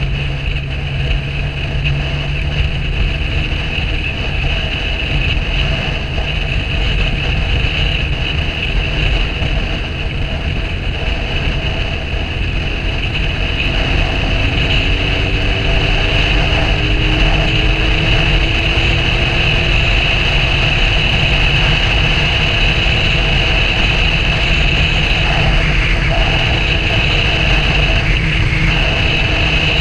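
A vehicle engine running steadily under wind and road noise; about halfway through its pitch rises as it speeds up, then it stays louder.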